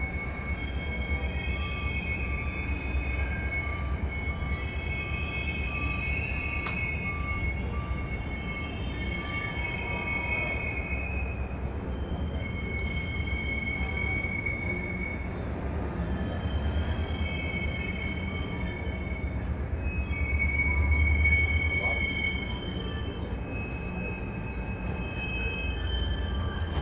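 Freight train of loaded coal hopper cars rolling through the rail yard: a steady low rumble with high-pitched wheel squeal coming and going throughout, loudest about three-quarters of the way through.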